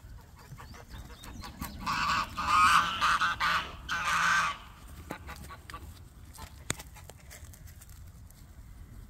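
Domestic geese honking, a run of loud calls for about two and a half seconds, starting about two seconds in.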